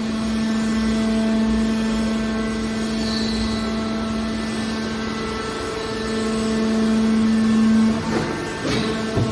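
Hydraulic aluminium can baler running: its pump motor hums steadily, swelling in strength a couple of times, with a few short knocks near the end.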